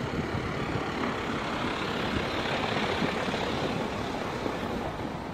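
Outdoor street ambience: a steady rushing noise that swells about two seconds in and eases off near the end.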